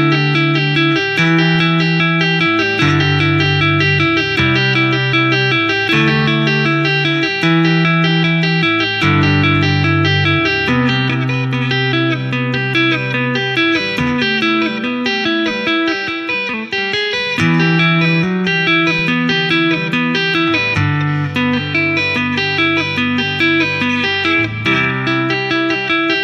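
Electric guitar played lap-style with two-handed tapping on the fretboard: a low line of held bass notes, changing every second or two, under a fast repeating pattern of higher tapped notes.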